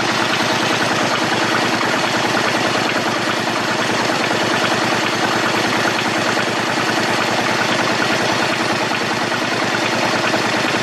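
Engine idling steadily, with a rapid, even pulsing.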